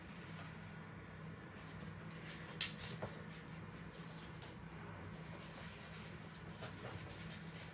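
Faint handling noises of paper and sticker sheets being worked by hand, with one sharp click about two and a half seconds in, over a steady low hum.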